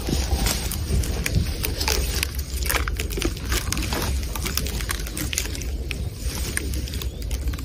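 Bactrian camel chewing dry thorny branches close up: irregular crunching and crackling of snapping twigs in its mouth, with a steady low rumble underneath.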